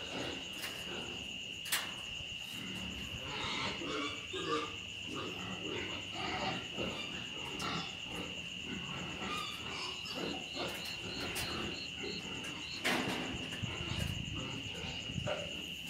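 Several rabbits eating grain from a plastic bowl, with many small irregular crunching clicks and scrapes from chewing and from paws shifting on the wire-mesh cage floor. A steady high-pitched tone runs underneath.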